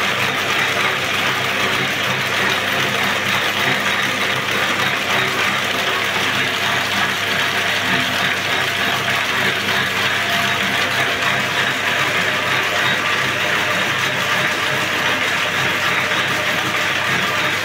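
Cord-braiding machine running steadily: a continuous mechanical whirr and clatter from its gear-driven carriers and take-up rollers, over a steady low motor hum.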